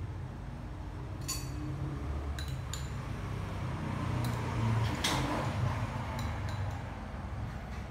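Chopsticks and spoon clinking lightly against ceramic rice bowls during a meal: several short, scattered clinks, the loudest about five seconds in, over a steady low hum.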